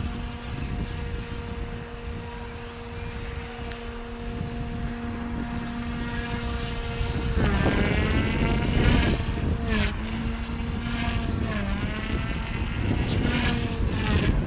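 OMPHOBBY M2 mini RC helicopter's twin brushless direct-drive motors and rotor whining in flight: a steady pitch at first, then from about halfway the pitch dips and rises repeatedly as the helicopter is manoeuvred. Wind rumbles on the microphone.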